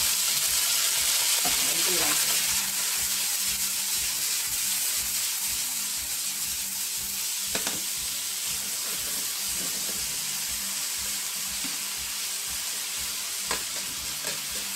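Water sizzling and hissing in a hot frying pan of julienned carrots and sweet potato, the splash of water added to steam the vegetables soft. The hiss is loudest over the first couple of seconds, then settles to a steady sizzle, with a few light knocks and a spatula stirring near the end.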